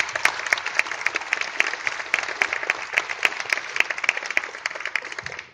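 Audience applauding, with loud, regular claps standing out at nearly four a second over the crowd's clapping; it tails off near the end.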